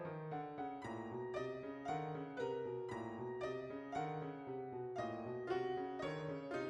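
Solo piano playing, with notes and chords struck about twice a second over a sustained low note.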